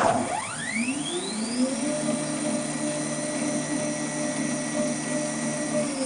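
Stepper motors of a homemade CNC gantry table moving an axis in a straight line. The whine rises in pitch as the axis speeds up, holds steady for about four seconds, then falls as it slows to a stop near the end. Right at the start, the previous move winds down with a quick falling sweep.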